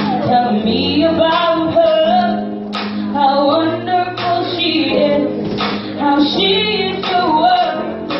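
Music with a woman singing over a steady bass line.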